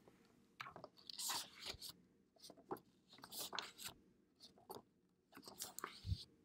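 Pages of a hardcover picture book being turned by hand: several short bursts of paper rustling and flapping, with a soft low thump near the end.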